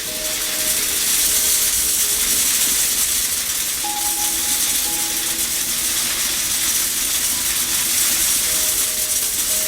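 Steady loud hiss, with soft held musical notes sounding faintly beneath it.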